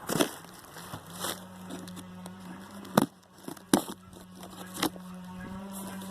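A few sharp, separate knocks and clicks from a heavy package being handled, over a steady low hum.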